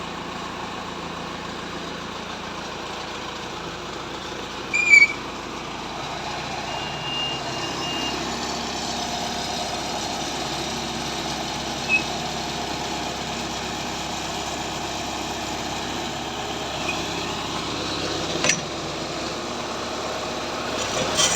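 Engine of a horizontal directional drilling rig running steadily, growing louder about six seconds in. A short, loud high chirp about five seconds in.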